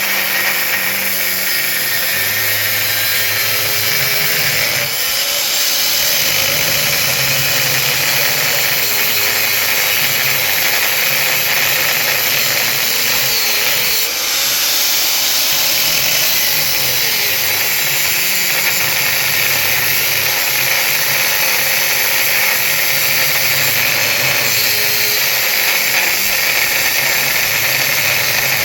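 Handheld power tool cutting steadily through the metal casing of a large electric motor, its motor pitch dipping and recovering as it loads up in the cut.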